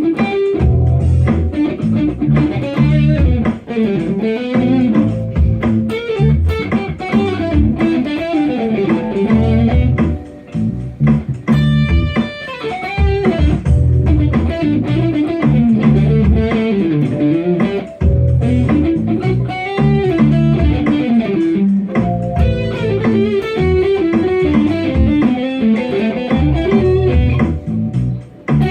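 Instrumental pop music led by electric guitar over bass guitar and a steady beat.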